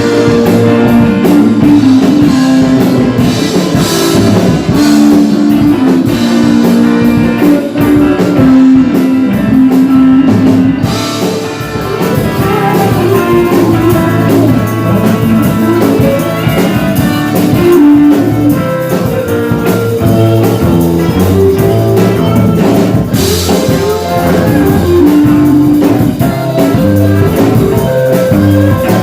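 A band playing rock-blues music with guitar and drum kit.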